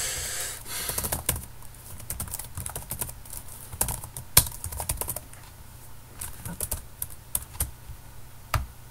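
Typing on a computer keyboard: a run of irregularly spaced keystroke clicks, with a few louder strokes, the loudest about four seconds in.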